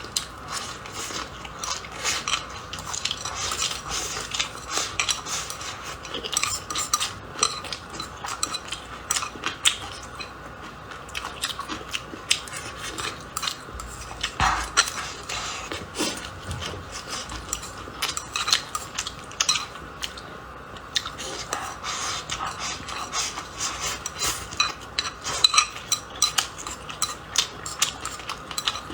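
Eating sounds: utensils clicking and scraping against a bowl of rice and pork, mixed with biting and chewing, in quick irregular clicks throughout.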